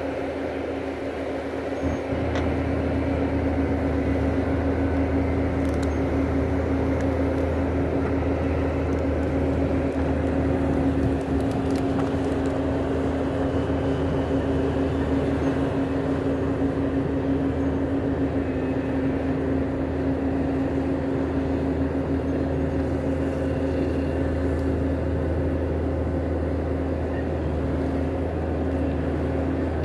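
Bobcat compact track loader's diesel engine running steadily, a little louder from about two seconds in.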